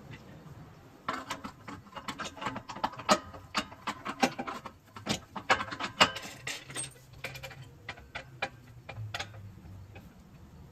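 Irregular metallic clicking and clinking from hand tools and metal parts being handled while a truck's rear suspension is worked on. The clicks come in quick uneven runs, some sharper and louder than others, and thin out near the end.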